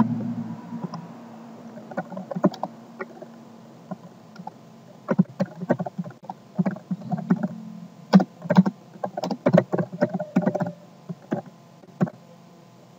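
Computer keyboard typing: irregular key clicks, a few at first, then quick runs from about five seconds in, over a low steady hum.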